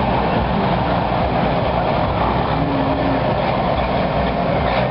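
Diesel engine of a classic ERF lorry tractor unit running steadily as it drives past, a continuous low rumble under outdoor background noise.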